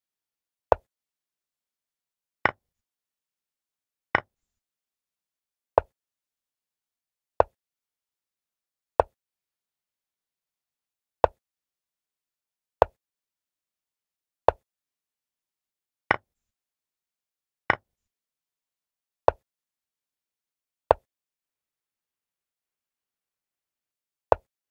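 Chess program's piece-move sound effect: a short click for each move played, fourteen in all, about one every one and a half seconds, with a longer pause before the last one.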